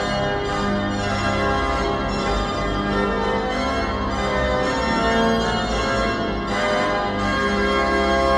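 Instrumental organ music playing sustained chords, with no singing.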